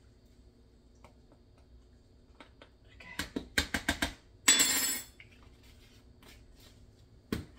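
A metal teaspoon clicking and tapping against a plastic container as cinnamon is measured out onto sugar, with a quick run of taps about three seconds in. A louder short clatter follows about a second later, and there is a single click near the end.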